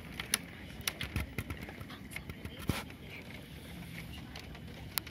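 Scattered sharp clicks and knocks, about half a dozen at uneven intervals, over a faint steady background hiss.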